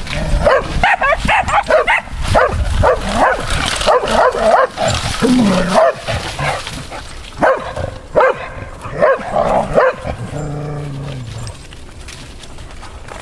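Dogs barking and yipping in quick, repeated bursts, dying down about ten seconds in.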